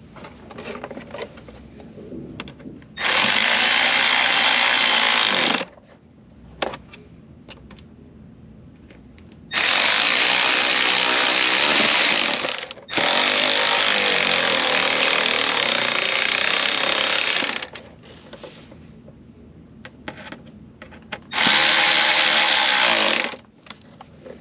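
Small power drill spinning a T20 Torx bit, running in four spells of two to five seconds each, with a brief pause in one of them. It is driving in the screws that secure the rear HVAC control module in the back of the center console. Light clicks of handling come in the gaps.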